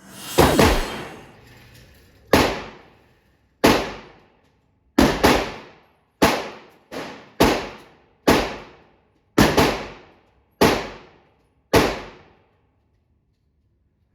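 Pistol shots: about a dozen rounds fired at an uneven pace, roughly one a second, sometimes two in quick succession, each with an echoing tail. One shot partway through is fainter.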